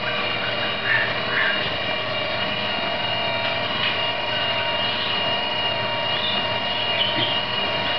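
Prototype counter-rotating propellers on a single shaft, spinning in air on a test rig under power: a steady whir with a high, even whine.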